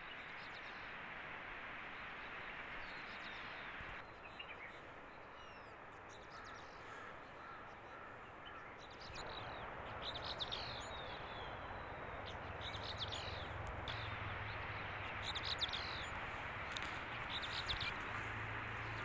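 Birds calling and chirping, short high calls that come more and more often through the second half, over a steady rushing background noise.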